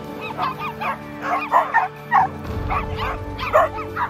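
A pack of small dogs yipping and barking in quick, irregular overlapping calls, over background music with sustained notes.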